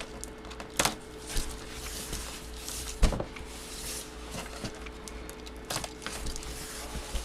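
Hands opening a box of trading photos: scattered knocks, clicks and rustling of cardboard and packaging, with the sharpest knock about three seconds in.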